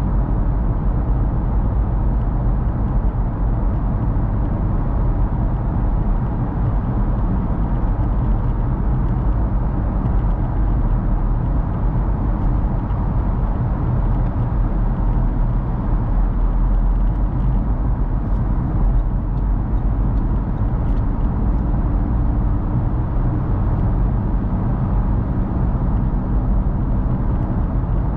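Steady road noise of a car driving at motorway speed through a road tunnel, heard from inside the car: tyre noise with a low engine hum.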